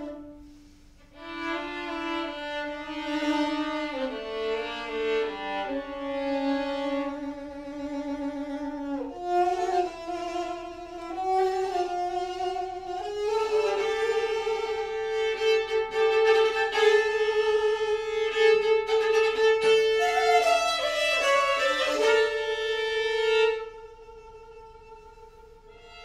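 Live string quartet playing contemporary classical music: violins holding long bowed notes, sliding between pitches. The playing swells louder through the middle and drops back to a quieter held note near the end.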